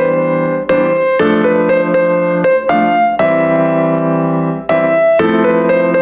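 Background piano music: a slow melody of sustained notes over held chords.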